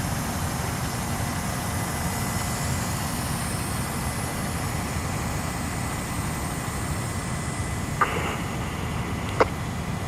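Fire engine idling: a steady low engine rumble with a faint high whine running through it. Two short knocks come near the end.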